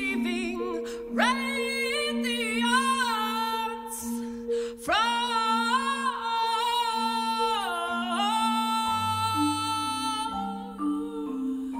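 A woman's solo voice sings long, held phrases with vibrato over steady held accompanying notes. The phrases begin about a second in and again about five seconds in.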